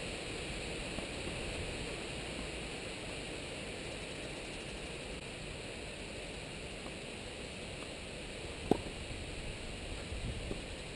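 A single sharp pop of a tennis racket striking the ball about three-quarters of the way through, with a couple of faint ticks after it, over steady background hiss.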